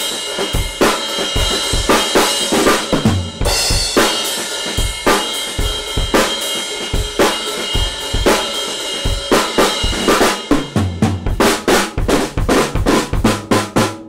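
Drum kit played in a groove with a set of Meinl BCS brass cymbals (14-inch hi-hats, 16-inch crash, 18-inch crash ride): kick and snare hits under ringing, washy cymbals. The strokes come quicker over the last few seconds.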